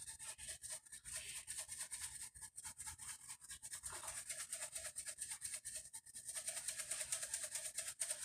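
Ground black pepper being shaken from a shaker over a bowl of dressing: quick, even rattling shakes, several a second.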